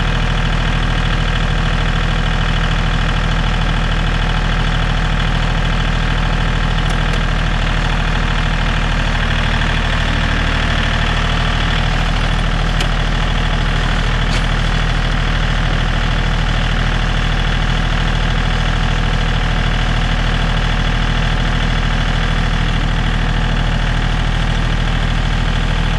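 John Deere tractor engine idling steadily, with no revving.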